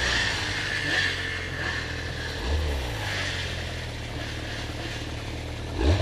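Snowmobile engine running at low revs, blipping briefly about two and a half seconds in, then revving up sharply just before the end.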